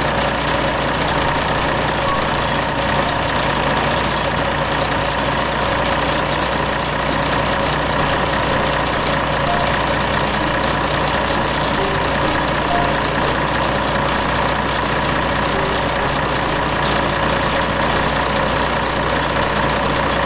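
Cummins common-rail diesel truck engine idling steadily, running normally with its XPI injectors refitted.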